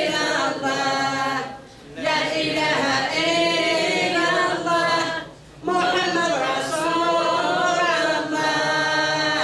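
Unaccompanied religious chant sung by an elderly woman: long, drawn-out, wavering lines, broken twice by short pauses for breath, about a second and a half in and again about five seconds in.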